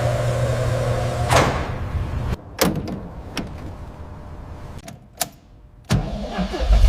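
A car door clicking and knocking shut a few times, then a car engine starting up near the end with a low rumble.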